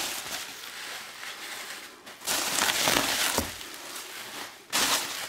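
Bubble wrap and plastic packing rustling and crinkling as hands rummage through it inside a cardboard box, with a louder bout about two seconds in and a shorter one near the end.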